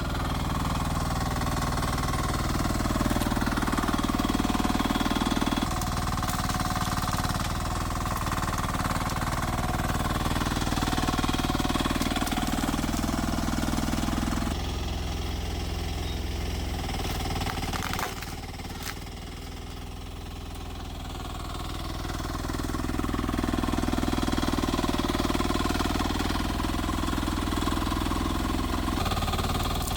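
Rippa R10 mini excavator's engine running under changing hydraulic load, its note swelling and easing several times as it works. A sharp knock comes a little past halfway, followed by a few seconds of quieter running before the load builds again.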